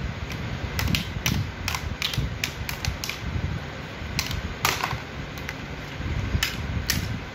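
Hard plastic action figures clicking and knocking against each other and against a hard floor in irregular taps, with one louder knock about two-thirds of the way through.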